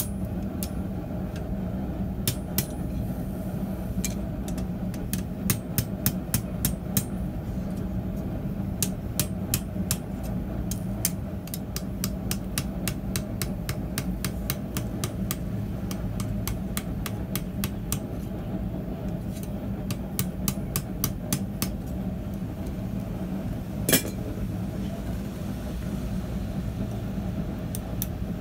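Hand hammer striking a hot steel coil on an anvil, in quick runs of sharp blows with short pauses between them and one louder blow near the end. A steady low hum runs underneath.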